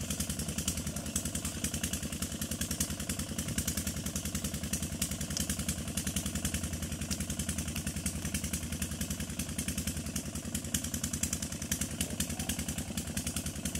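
An engine running steadily at an even idle, with a rapid, regular thudding beat.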